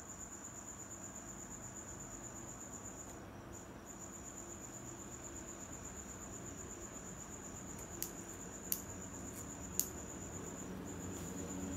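A cricket trilling steadily in the background, a high pulsing tone that breaks off briefly a couple of times. Three sharp snips of scissors cutting through long hair sound in the last few seconds.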